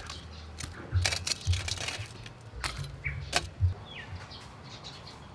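A handful of sharp clicks and knocks, with two short bird chirps near the middle, the second falling in pitch, over a low rumble that rises and falls with the clicks.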